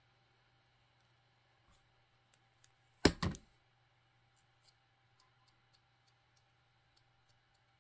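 Two quick knocks close together about three seconds in, then a few faint ticks: small items being handled and set down on a workbench.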